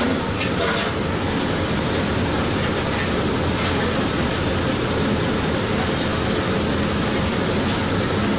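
Hot oil sizzling and bubbling hard in a large karahi as battered pieces deep-fry: a loud, steady hiss.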